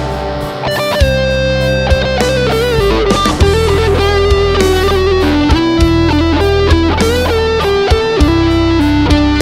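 Modified Squier Bullet electric guitar with HSS pickups playing a lead melody, with string bends and long held notes, over a backing track with bass and a steady beat.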